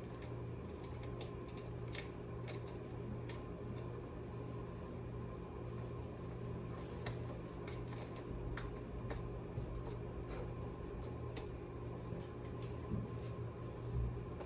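Scattered light clicks and taps of small parts being handled during the install, irregular and a few per second at most, over a steady low hum.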